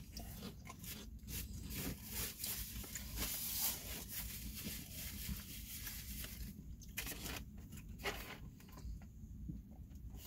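Potato chips being chewed, a faint run of crisp crunches for about seven seconds that then thins to a few scattered crunches.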